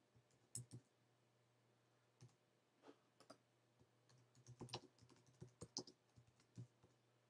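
Faint computer keyboard typing: scattered single key clicks, then a quicker run of keystrokes about four and a half to six seconds in.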